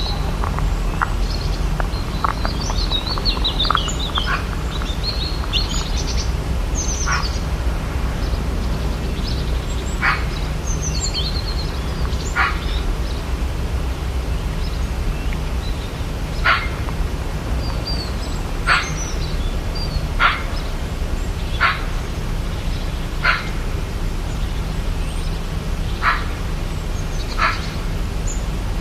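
Rainforest ambience: birds twittering, then a run of about ten short sharp calls, one every two seconds or so, over a steady low rumble.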